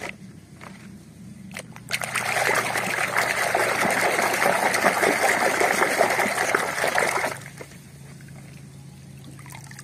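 Water churning and splashing in a plastic basin as a muddy toy airplane is swished back and forth by hand. It starts about two seconds in, runs steadily for about five seconds and stops abruptly, with a couple of faint knocks of the toy being handled before it.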